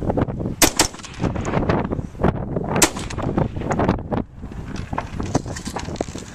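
Several rifle shots fired at irregular intervals, with the sharpest reports shortly after the start and about three seconds in.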